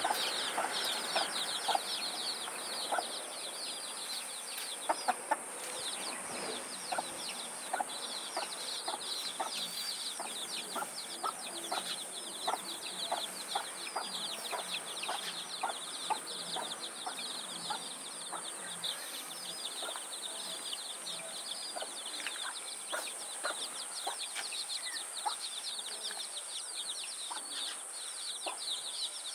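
A hen clucking over and over, about twice a second, while many chicks peep rapidly and without a break. A steady high-pitched whine runs underneath.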